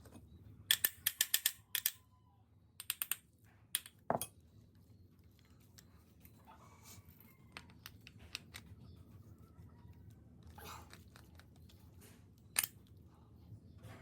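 Sharp clicks and clacks of hard parts and hand tools being handled during the repair of a rotary hammer drill. There is a quick run of about ten clicks about a second in, then scattered single clicks with quiet stretches between them.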